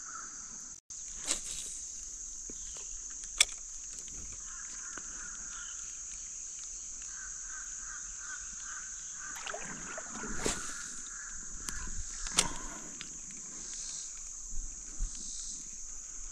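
Steady high-pitched insect chorus, with a few sharp knocks and splashes scattered through it, the loudest about three seconds in and again around ten to twelve seconds in, from footsteps wading over river rocks.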